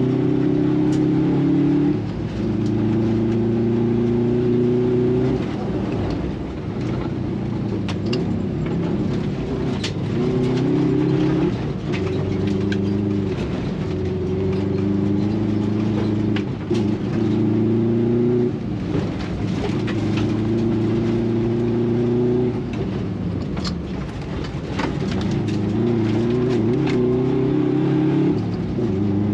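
Rally car engine, heard from inside the cabin, revving hard through the gears. Its pitch climbs, drops back at each gearchange and climbs again, over and over, with scattered sharp knocks on top.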